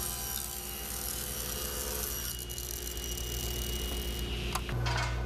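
Table saw running steadily as a board is ripped lengthwise to final width. The cutting noise fades after about two seconds and the saw keeps spinning. Near the end a different steady machine hum takes over.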